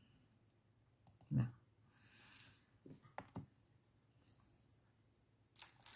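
Faint scattered clicks and taps of small objects being handled, with one louder knock about a second and a half in, and rustling starting near the end.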